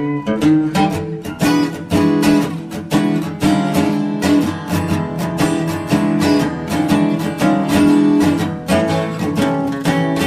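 Background music: acoustic guitar, plucked and strummed notes at a steady pace.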